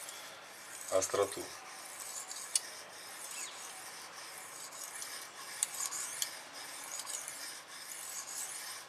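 Stainless-steel kitchen knife blade stroked back and forth across a fine sharpening stone with light pressure: a steady, hissy scrape of steel on stone, with a few sharp ticks. This is the sharpening stage on the finer stone, after the rough edge-forming.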